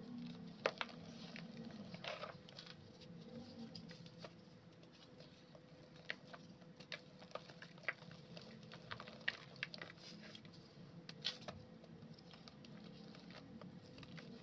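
Lumps of dry, dusty mud crumbled by hand, with soft crunching and crumbs and powder pattering down into a tub of dry mud dust. Sharp little crackles come at irregular moments, a few louder than the rest.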